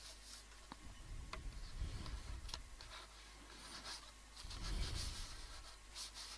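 Faint handling of paper and card: a paper tag slid in and out of a card pocket, with light rustling and small clicks, and soft low bumps about two seconds in and again about five seconds in.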